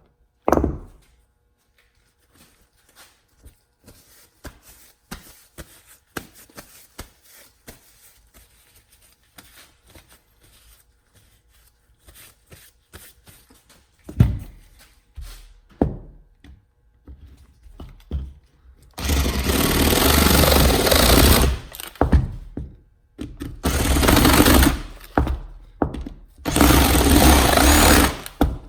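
A reciprocating saw (Sawzall) cutting into a steel oil filter housing in three bursts of a few seconds each in the second half, after a stretch of light taps and knocks as the filter is handled.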